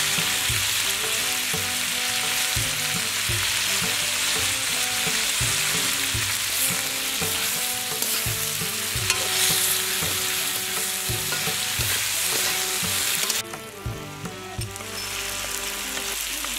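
Chicken and potato pieces sizzling in a hot metal kadai, with a perforated metal ladle stirring and scraping against the pan every second or so. The sizzling cuts off abruptly near the end.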